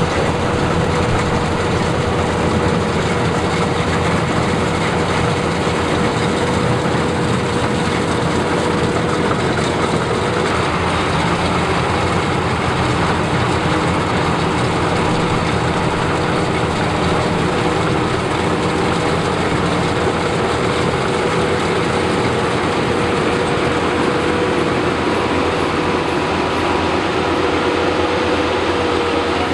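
Combine harvester running steadily while harvesting rice: a continuous loud mechanical drone with a steady whine, unbroken and without speech.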